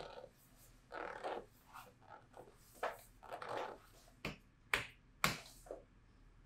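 A masseuse's hands rubbing and pressing over skin and cloth during a back massage, then three sharp smacks about half a second apart in the second half.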